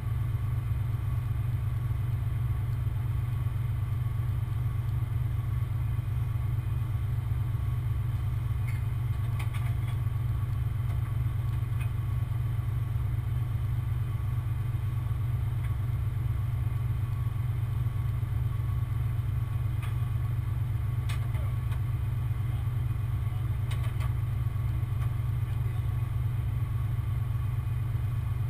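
Large truck engine idling steadily, with a few faint metallic clicks now and then.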